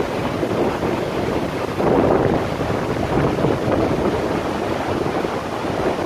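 Waterfall and mountain stream rushing over rocks: a steady, loud wash of white water.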